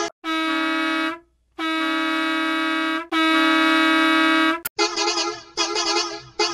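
Three long, steady horn blasts, the second and third back to back and the third louder, followed from about five seconds in by lively music.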